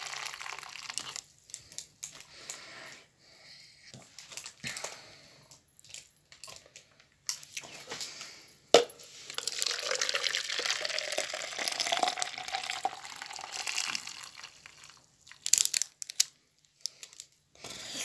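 Water running and splashing into a container for a Chelsea Color Reveal doll's water reveal, in uneven spells with a steadier stretch in the second half. Crinkling and scattered handling clicks come between, and one sharp knock about nine seconds in.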